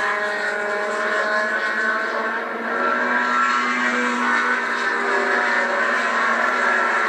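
Several H Production race cars' engines running at high revs as the cars pass in a close group, with overlapping engine notes rising and falling. The sound is thin and lacks bass, heard as TV playback.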